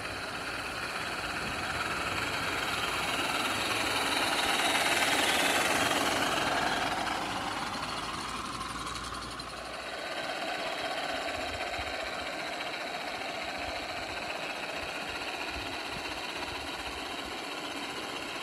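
Live-steam garden-railway model of a Class A Climax geared locomotive running with a train: a steady, rhythmic beat of steam exhaust with hiss. It grows louder as the engine draws near, loudest about five seconds in, then settles steady.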